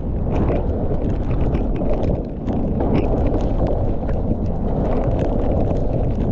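Mountain bike descending a wet trail: wind rushing over the microphone, tyres on wet ground and the bike rattling, with frequent sharp clicks and knocks.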